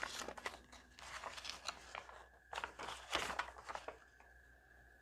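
Paper instruction booklet being handled and leafed through: faint, irregular crinkles and rustles that stop about four seconds in.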